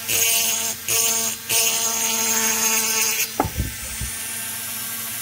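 High-speed flex-shaft rotary tool whining steadily as its small bit grinds a chamfer into the port edge of an Echo CS-670 chainsaw's plated cylinder, the grinding hiss coming and going. The tool stops about three seconds in, followed by a few soft knocks.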